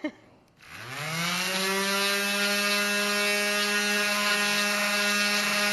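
Electric hand sander switched on about half a second in, winding up over about a second to a steady whine, sanding burn and saw marks off a wooden board.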